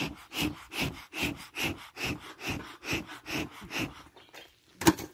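Bee smoker's bellows pumped in a steady rhythm, about two and a half puffs of air a second, fanning the fire of cardboard, leaves and wood pellets in the smoker. The pumping stops about four seconds in, and a single sharp clack follows near the end.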